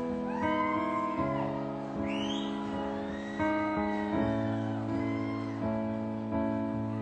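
Slow piano chords, each held and ringing, changing about once a second.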